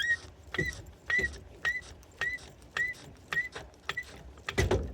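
Car jack being pumped up by hand: a click with a short squeak on each stroke, about two strokes a second, and a heavier knock near the end.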